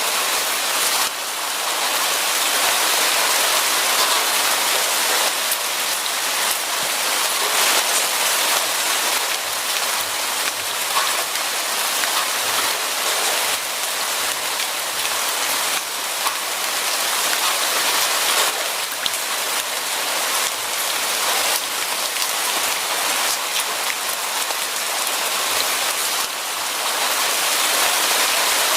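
Steady rain falling, with a dense patter of drops striking a surface.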